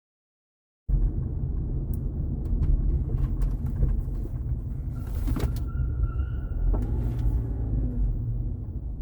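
Low steady rumble inside a slow-moving 2014 Mazda 3's cabin, starting about a second in, with several sharp knocks or pops heard through it while the car is turning. These knocks are the fault the owner is chasing: a knocking/popping noise whenever the steering is between half and full lock while moving, cause unknown.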